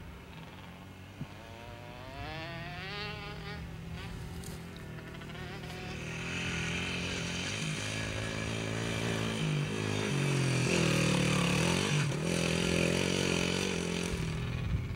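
Small dirt bike engine revving up and down as it is ridden around a motocross track, growing louder as the bike comes toward the camera. It is loudest about ten to twelve seconds in, where the pitch dips briefly.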